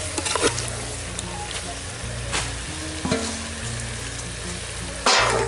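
Pork and spice masala sizzling and frying in an aluminium pot over a wood fire while being stirred, with occasional short scrapes of the stirring utensil against the pot. A brief, louder burst of noise comes near the end.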